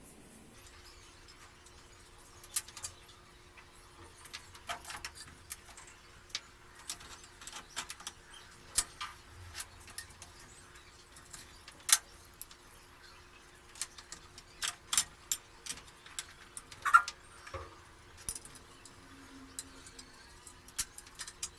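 Scattered metallic clicks and clinks, a few at a time with short pauses between, from hand work fitting supermarket-trolley wheels to a metal wheeled shopping cart. A faint steady hum runs underneath.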